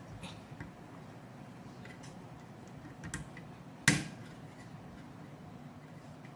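Graphics card parts being handled during reassembly: a few light clicks and one sharp clack about four seconds in.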